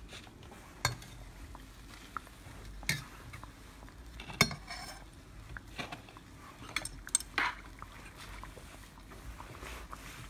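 Metal slotted skimmer clinking and knocking against a stainless steel saucepan of frying oil while fritters are turned and lifted out: about eight scattered sharp clinks, the loudest about four and a half seconds in.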